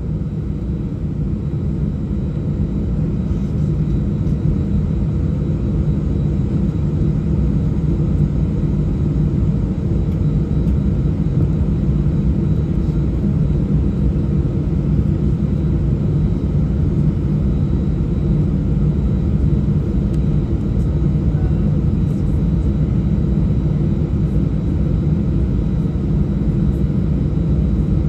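Airbus A319 jet engines at takeoff power, heard inside the cabin as a loud, steady, deep rumble that grows a little louder over the first few seconds and then holds.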